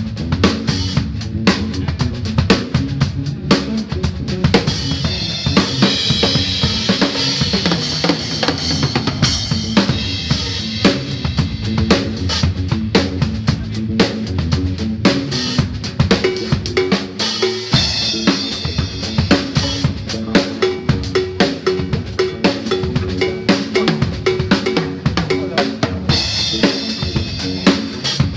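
Drum kit played continuously: fast snare, rim and bass-drum strokes, with cymbal wash twice, about five seconds in and again near the end. Some held pitched notes sound underneath the drums.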